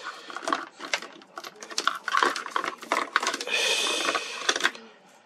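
Cardboard and plastic phone packaging being handled: a quick run of clicks and rustles, then a longer scraping slide from about three and a half seconds in.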